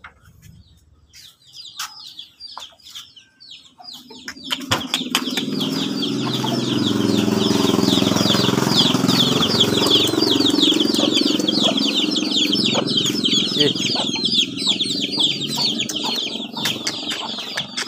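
A crowd of village chicks peeping together: many rapid, high, falling chirps over a loud rustling and flapping of bodies and wings. It swells up about four seconds in, after a few faint clicks, and eases slightly near the end.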